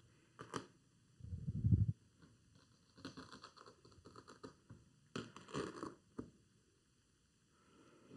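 Hands working suede headliner fabric: scattered rustling and scratching as it is cut and pulled around the board's edge, with a low rumbling bump about a second in.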